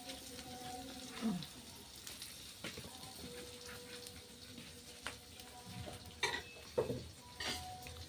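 Water spinach stir-frying in a pan: a steady sizzle, with the spatula scraping and clacking against the pan a few times, most sharply in the second half.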